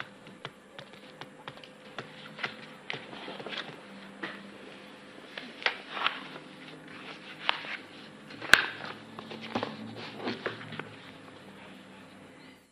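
Quiet room tone with a steady faint hum and scattered small clicks and taps, the sharpest about eight and a half seconds in.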